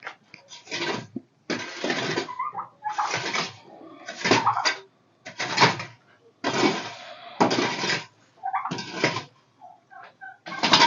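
Repeated scraping strokes, about one a second.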